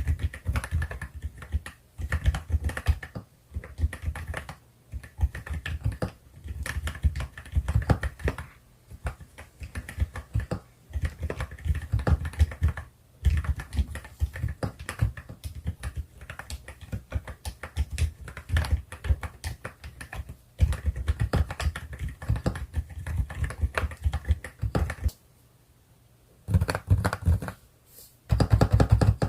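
Fast typing on an EPOMAKER RT65 mechanical keyboard with HAIMU silent Pink Salt switches and Monstargear cloud-cat keycaps: rapid keystrokes in bursts with short breaks, and a pause of about a second and a half near the end.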